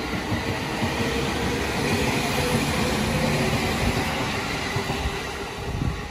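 Electric commuter train of the JR Musashino Line running past along the platform, its wheels and running gear rumbling on the rails. The sound swells in the middle and fades near the end as the last cars go by.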